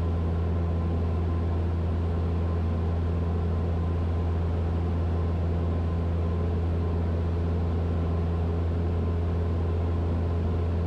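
Cessna 172's piston engine and propeller droning steadily inside the cabin in level flight, a constant low hum with no change in pitch or level.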